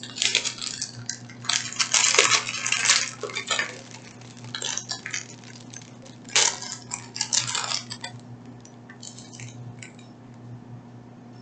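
Clear plastic packet of diamond-painting keychain parts being handled: crinkling plastic and light clicks of hard plastic pieces, in bursts during the first four seconds and again around six to eight seconds, then only a few light taps.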